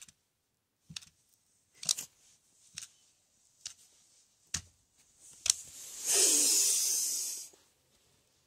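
Handling noises from a plush toy and a wired game controller being moved on carpet: a series of light knocks and clicks about once a second. About six seconds in comes a loud rushing hiss lasting about a second and a half, then it stops.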